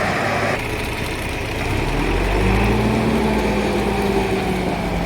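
Engine of a heavy road-works machine running; about two seconds in it revs up to a higher, louder pitch and holds there.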